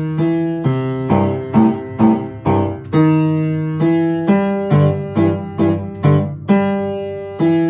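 Upright piano playing a boogie piece an octave lower than written. It is a steady run of low-register notes and chords, mostly short with a few held longer.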